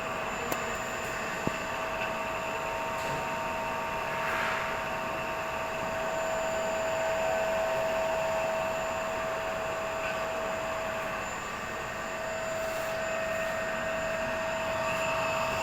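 Three-phase induction motor on a star-delta connection running with a steady whine over a rushing, fan-like noise; this is the abnormal motor sound being checked. Two faint ticks come within the first two seconds.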